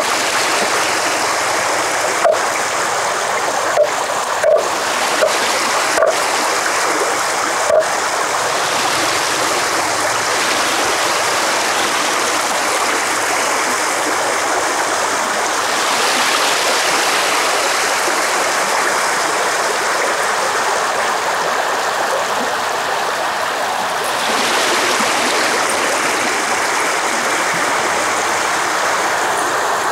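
Steady rush of running stream water. A few short, sharp sounds stand out in the first eight seconds.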